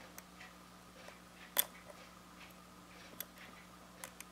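Small sharp clicks of steel tweezers against a tiny screw and the battery cover of a quartz watch movement as the screw is worked out, one clearly louder click about one and a half seconds in, over a faint steady hum.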